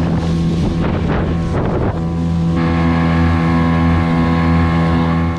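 Small outboard motor driving an inflatable dinghy at speed on a newly fitted propeller, running steadily with wind on the microphone and water splashing in the first two seconds. About two and a half seconds in, the engine note changes and holds steady.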